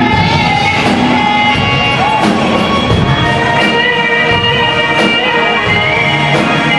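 Live rock band playing loudly through a hall's PA: electric guitars and bass over a drum kit keeping a steady beat.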